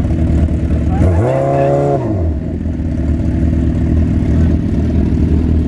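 Two sport motorcycles running side by side at the start line, engines idling steadily, with one quick throttle blip about a second in that rises and falls back to idle.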